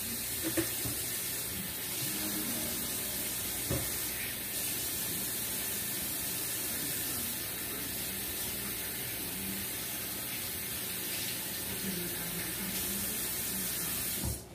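Kitchen sink faucet running in a steady stream while hands are washed under it, turned on suddenly at the start and shut off just before the end.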